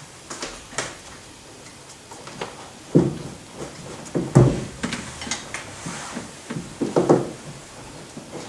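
A performer moving about a stage and handling props: a few dull thumps and knocks, the loudest about three, four and a half and seven seconds in, with lighter clicks and rustling between.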